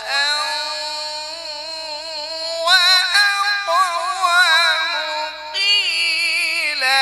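A man's melodic Quran recitation (tilawat), chanted into a microphone, holding long notes with wavering, ornamented pitch. A new, louder phrase begins about three seconds in, and another begins near the end.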